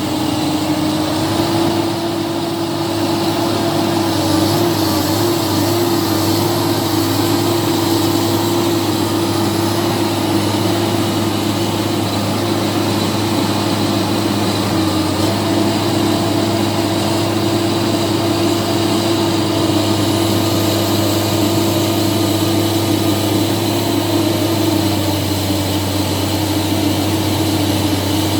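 Heavy diesel engine running steadily at an even speed, a constant low hum with no change in pitch.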